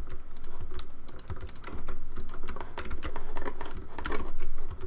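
Computer keyboard being typed on: a quick, irregular run of key clicks as shortcuts are pressed.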